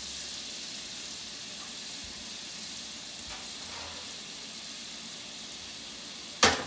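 Butter, garlic and rosemary sizzling steadily in hot oil in a smoking-hot cast iron skillet, with one sharp knock near the end.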